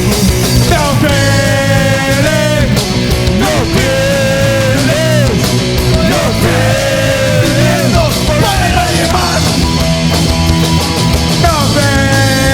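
Live punk rock band playing loud, with a lead line of held notes that bend up and down in pitch over the full band.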